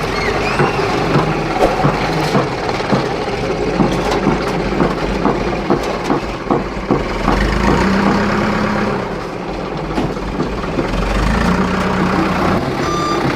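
A heavy-machinery engine running at idle. A rapid series of knocks and clanks fills the first half, then it settles into a steadier low hum.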